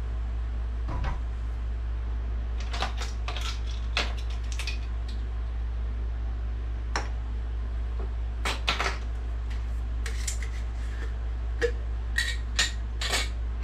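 Light clicks and taps of a measuring spoon against a plastic mixing container and a jar, scattered and coming in small clusters, busier near the end, over a steady low hum.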